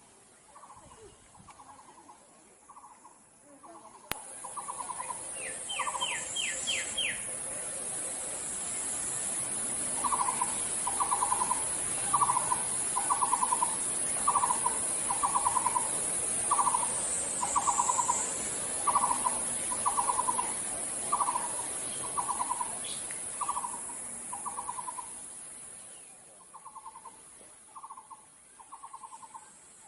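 A bird repeating a short rattling call about once a second. A brief run of higher rattles comes about six seconds in. A steady high hiss swells in after a few seconds and fades out near the end.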